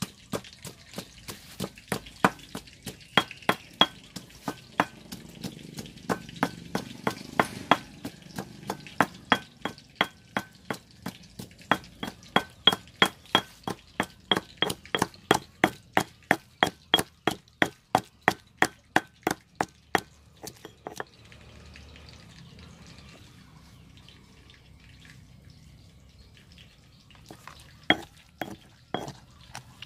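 Stone pestle pounding in a stone mortar, sharp knocks about three a second, crushing ingredients into a paste. The pounding stops about two-thirds of the way in and starts again near the end.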